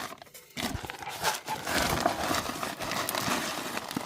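Poultry feeding: rapid, irregular pecking clicks and rustling of feed.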